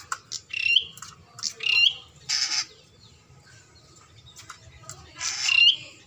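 Caged ciblek (bar-winged prinia) calling at its reflection in a mirror hung in the cage: short, sharp chirping phrases, each ending in a quick upward-hooked note, given three times, with one harsh rasping call about two and a half seconds in. There is a lull of about two seconds before the last phrase.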